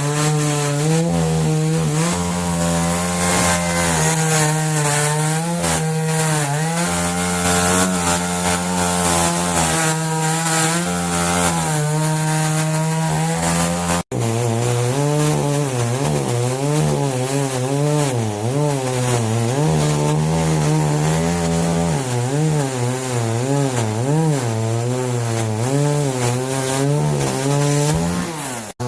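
Chainsaw running while cutting firewood. Its engine note rises and falls as the chain bites and frees, with a short break about halfway through.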